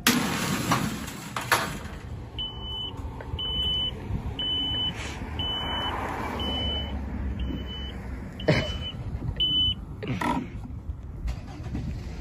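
Electric shopping cart beeping, about eight short high beeps roughly one a second, over the rumble of its wheels rolling on asphalt, with a few knocks and rattles of the wire basket.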